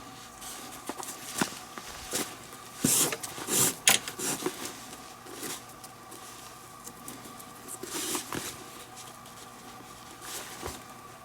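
Leather lace being drawn through the lacing holes of a Rawlings Gamer glove and pulled tight, giving irregular rubbing swishes and scrapes with a few sharp clicks, the busiest stretch about three to four seconds in.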